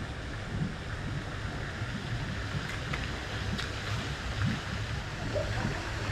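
Steady rushing water noise, with an uneven low rumble of wind on the microphone and a few faint clicks midway.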